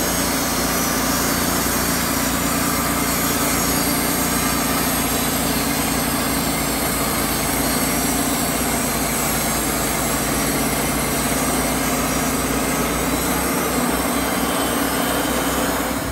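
Wood-Mizer LT35 portable band sawmill running, its engine going steadily while the band blade cuts along a log and the chute blows out sawdust.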